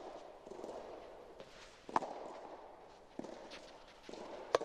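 Soft tennis rally: rackets striking the soft rubber ball, with a sharp hit about two seconds in, a smaller knock a second later, and the loudest hit near the end, each echoing briefly under the court roof. Players' shoes scuff on the court between shots.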